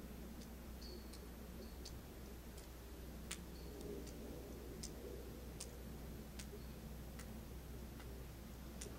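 Faint, sharp ticks at irregular intervals, roughly one a second, some with a brief high ring, over a steady low hum.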